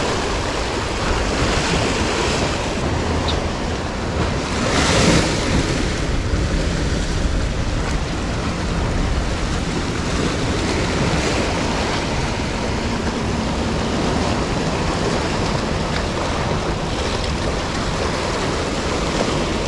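Sea waves washing around shoreline rocks, with wind noise on the microphone; one louder wave surges through about five seconds in.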